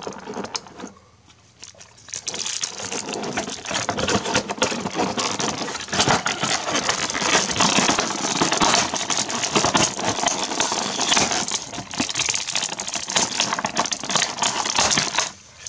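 Clear plastic figure packaging crinkling and crackling as it is handled, a dense run of crackles starting about two seconds in and stopping shortly before the end.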